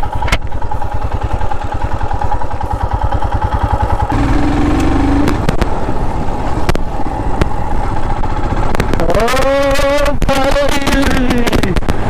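Royal Enfield Himalayan's single-cylinder engine running steadily at low speed as the motorcycle rides over grass, with a brief voice about nine seconds in.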